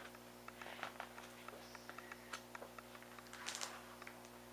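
Sheets of a scrapbook paper pad being turned by hand: faint paper rustles about a second in and again near the end, with small ticks, over a steady low hum.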